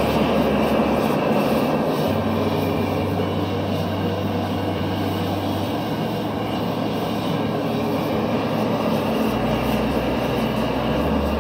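Gas forge burner running steadily, a loud even rush of burning gas.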